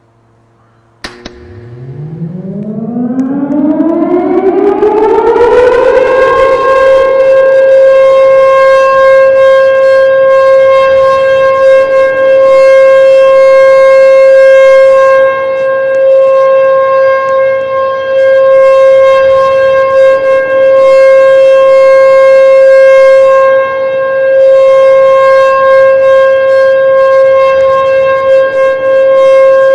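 Tornado warning siren starting up for a test: a click about a second in, then its tone winds up from a low growl to a high pitch over about five seconds and holds as one steady wail.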